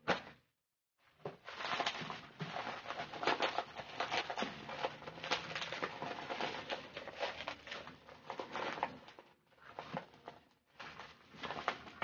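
Plastic packaging crinkling and rustling as a bag and bubble wrap are opened and handled, a dense crackle that starts about a second in, breaks off around nine seconds in, then comes back in two shorter bursts.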